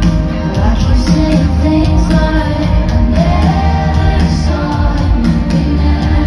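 Live pop band playing with steady bass and regular drum hits, with a voice singing a bending melody over it.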